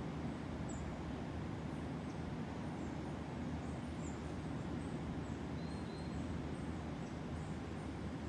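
Coastal rainforest ambience: a steady low rumble with scattered faint, short bird chirps high above it.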